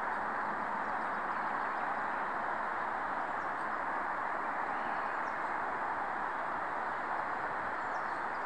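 Woodland ambience: a steady, even rush of background noise, with a few faint, short bird chirps about five seconds in and again near the end.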